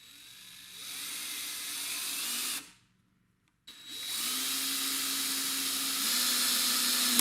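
Craftsman V20 20-volt cordless hammer drill driving a screw in two runs. The first run of about two and a half seconds speeds up gradually. After a pause of about a second comes a longer, steady run that stops abruptly at the end.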